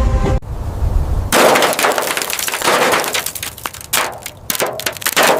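Crunching and clattering noise, like glass and metal breaking, that starts about a second in after a low rumble cuts off and goes on in uneven bursts.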